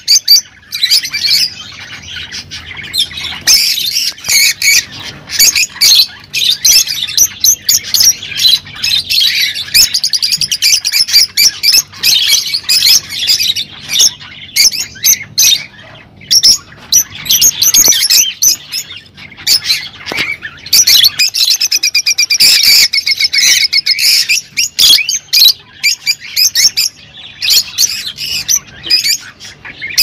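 Lovebirds (rosy-faced and Fischer's) chattering: a dense, unbroken run of rapid high-pitched chirps and squawks.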